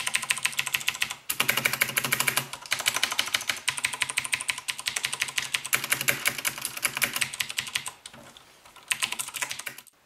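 Typing on a Perixx PX-5200 mechanical keyboard with Cherry MX Blue switches and a plastic backplate: fast runs of loud, clicky keystrokes with short breaks, and a longer lull about eight seconds in.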